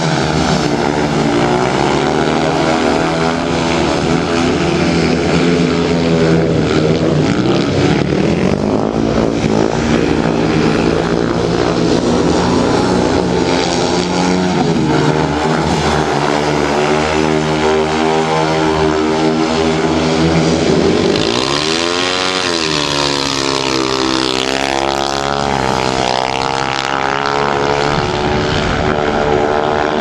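Several speedway motorcycles' 500 cc single-cylinder methanol engines revving hard as they race round the track, their notes overlapping. About two thirds of the way through, one engine's pitch dips and then climbs again.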